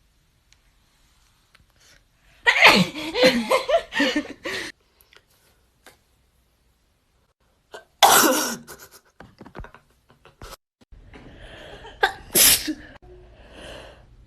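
Several sneezes: a long outburst with voice in it about two and a half seconds in, a short sharp sneeze about eight seconds in, and another sharp sneeze about twelve seconds in.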